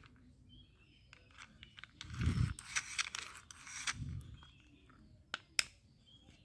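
Plastic toy being handled: a bump and a scraping rustle for a couple of seconds, another bump, then two sharp clicks in quick succession.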